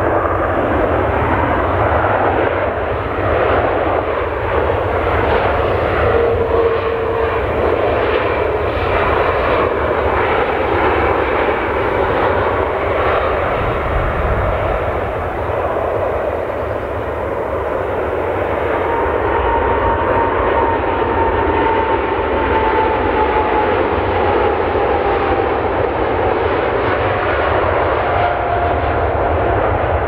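Jet engines of an S7 Airlines Airbus A321 on the runway during its landing roll with ground spoilers raised: a loud, steady rushing noise with a whine that slowly falls in pitch in the second half.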